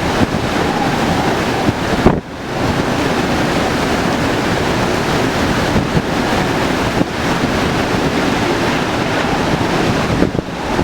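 Hurricane-force wind, a loud steady rushing with gusts buffeting the microphone, in a Category 4 hurricane. It dips sharply for a moment about two seconds in.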